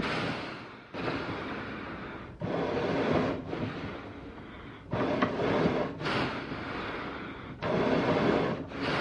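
Heavy, noisy animal breathing in slow cycles: each loud breath starts abruptly and fades into a quieter one, about every two to three seconds.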